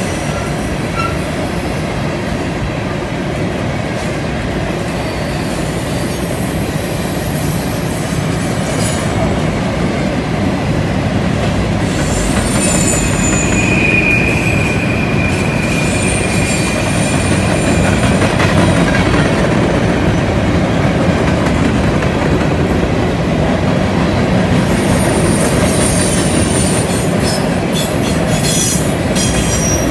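Covered hopper cars of a long freight train rolling past on a curve: a steady rumble of steel wheels on rail, with thin high wheel squeal coming and going as the flanges grind through the curve. The clearest squeal comes a little before halfway, with more high squealing near the end.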